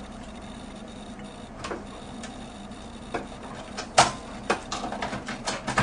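Scattered clicks and light knocks of equipment being handled, a few at first and then several close together, the loudest about four seconds in.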